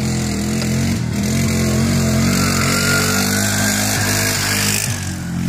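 ATV engine revving up and down as the quad drives through shallow water, with a hiss of water spraying off its tyres.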